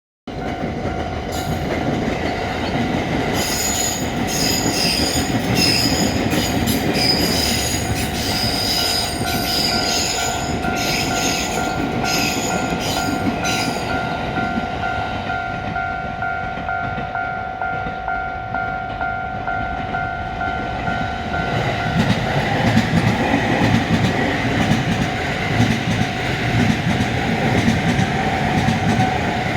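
Japanese level-crossing warning bell ringing steadily while a train passes, its wheels squealing on the rails for about ten seconds. The bell stops about two-thirds of the way through, and a low rumble carries on.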